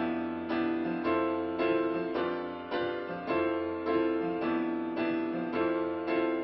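Piano playing the instrumental intro of a song: a steady pattern of chords struck a little under twice a second, each ringing and fading before the next.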